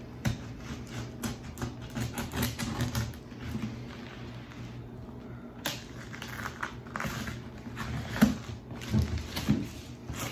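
Paper wrapping and packing tape being cut and peeled off a cardboard box: a run of scratchy rips, rustles and clicks, quieter for a couple of seconds in the middle, with one sharper knock about eight seconds in.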